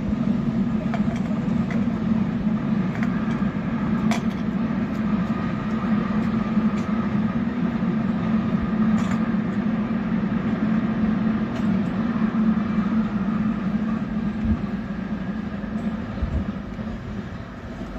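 Container freight train hauled by an E494 electric locomotive rolling across an arched viaduct: a steady rumble that eases off near the end as the last wagons clear.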